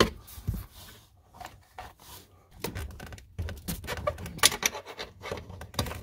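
Irregular scraping, rubbing and small clicks of rubber and plastic shifter bushing parts being handled and worked by hand.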